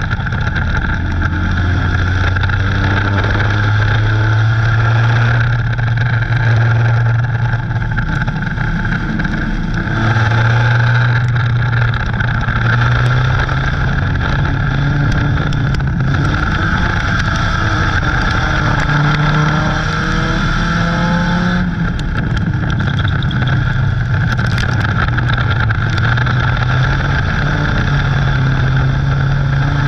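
Dirt-track race car's engine heard from inside the cockpit at racing speed, its pitch climbing as it accelerates and dropping as it eases off, every five or six seconds through each lap. A constant rush of wind and road noise runs underneath.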